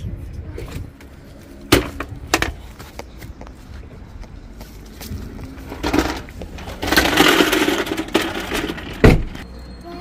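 Handling noise: two sharp knocks early on, a couple of seconds of rustling, then one loud thump near the end.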